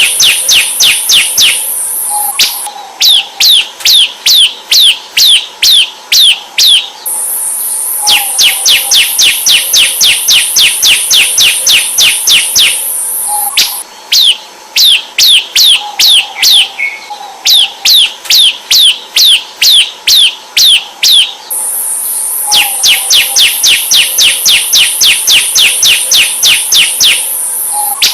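Ciblek (bar-winged prinia) song: rapid runs of sharp, down-slurred chip notes, about six a second, in bouts of a few seconds separated by brief pauses. A steady high hissing buzz rides over some of the bouts.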